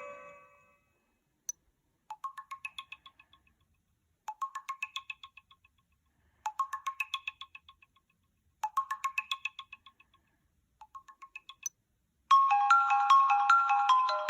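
Sony Xperia Z5 Compact ringtones played one after another. A previous tone fades out, then after a click a short, quick run of bell-like notes repeats about every two seconds, five times. After another click about twelve seconds in, a louder, fuller melody begins.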